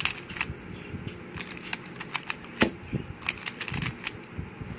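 Plastic Rubik's cube being turned and handled: a run of irregular clicks and clacks as the layers snap round, with one louder clack about two and a half seconds in.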